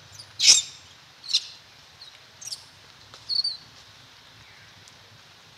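Baby long-tailed macaque giving four short, high-pitched squeaks spread over about three seconds, the first the loudest.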